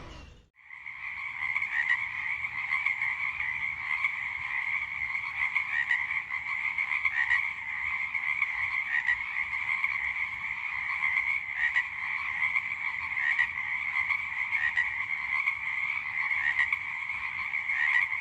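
Dense, continuous evening chorus of many calling animals, a steady shimmering mass of calls starting about half a second in after a brief gap.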